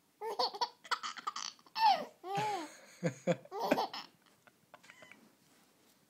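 Three-month-old baby laughing in a string of short bursts for about four seconds, then falling quiet.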